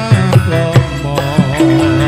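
Sholawat devotional singing: a man sings a wavering, ornamented melody into a microphone over hand-struck frame drums (rebana) beating a steady rhythm, all through a PA system.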